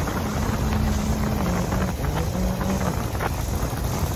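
Harley-Davidson chopper's V-twin engine running steadily as it rides along, its note dipping slightly partway through, with wind buffeting the microphone.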